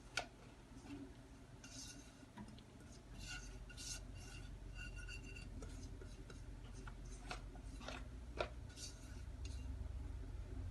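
Faint kitchen handling sounds: a few light clicks and taps of utensils and dishes, with soft scraping, over a low hum.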